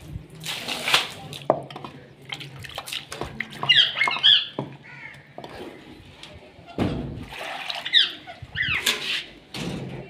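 Caged parrots squawking several times, with clinks and knocks of the wire cage and its latch being handled. A short splash of water near the start.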